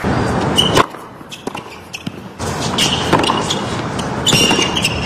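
Tennis crowd applauding, cut off suddenly under a second in. Then a point on a hard court: sharp knocks of racket on ball and short high squeaks of shoes on the court, over the murmur of the crowd.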